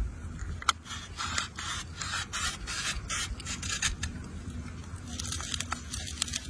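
Small knife blade cutting and scraping around the skin of a red apple, a run of short, irregular rasping strokes.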